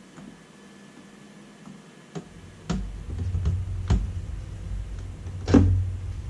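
Hands fitting a small screw into the servo mounted on a toaster-oven reflow case: a few sharp clicks and knocks from about two seconds in, the loudest near the end, over a low handling rumble.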